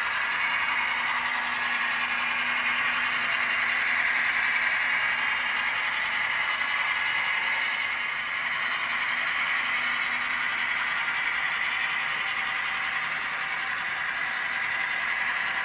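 HO scale model train running steadily: the small electric motor of the model diesel locomotive whirring and the metal wheels of the locomotive and freight cars rolling over the track, with no break.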